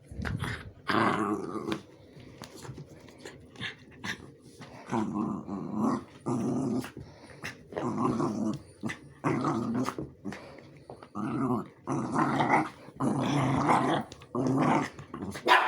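A dog growling and grumbling in a long run of short bouts, one after another with brief gaps, the vocal 'talking' kind of growl.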